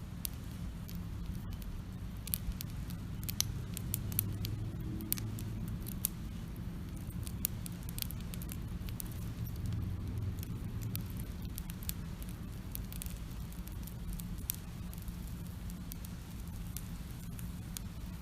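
Wood campfire crackling, with irregular sharp pops and snaps over a steady low rumble. The pops come most thickly in the first half.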